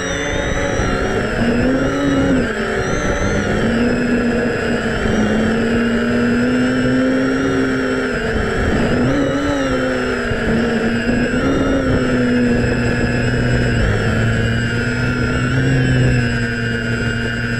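DJI F550 Flamewheel hexacopter's brushless motors and propellers whining in flight, heard from the GoPro on its frame, the pitch rising and falling as the motors speed up and slow down. A low wind rumble runs underneath.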